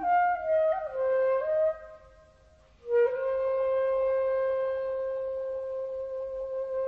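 Slow, meditative solo woodwind melody. A short phrase steps downward, breaks off for about a second, and then one long note is held steadily from about three seconds in.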